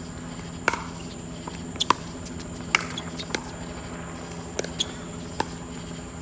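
Pickleball rally: a plastic pickleball pocks sharply off solid paddles and the hard court, about eight hits at uneven gaps. A steady high hum runs behind them.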